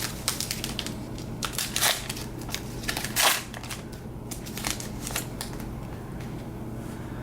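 Trading cards being handled and flipped through by hand: a quick run of dry rustles and clicks of card stock, the loudest about two and three seconds in.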